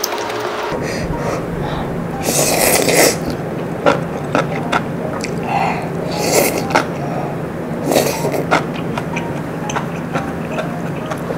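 A person slurping noodles from a bowl of malatang: three loud slurps about two, six and eight seconds in, with light clicks from chopsticks and spoon between.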